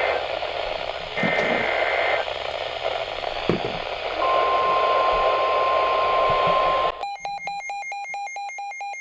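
NOAA Weather Radio static with the end of the EAS SAME header: two short two-pitch data screeches near the start. About four seconds in, the steady 1050 Hz warning alarm tone sounds for about three seconds. Then the static cuts off and the weather radio receiver's own alarm starts, a rapid electronic beeping.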